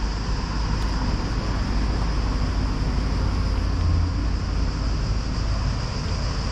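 Steady city street background noise: a low rumble of traffic with an even high hiss above it.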